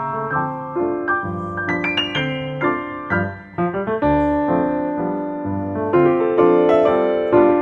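Piano music: a melody of notes over chords, played at an even pace.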